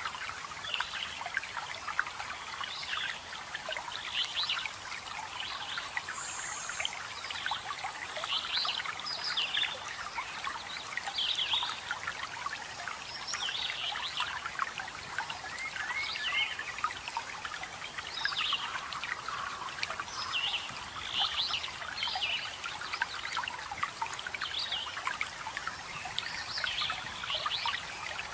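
Many forest birds chirping and singing in short, frequent calls over a steady trickle of flowing water.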